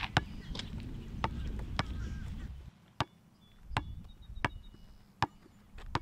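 A basketball being dribbled on an outdoor asphalt court: a sharp bounce about every three quarters of a second, nine times.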